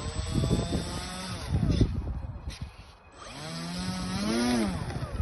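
RC model plane's motor whining overhead, its pitch sliding down as it passes, then rising and falling again as it makes a second pass, over a low rumble.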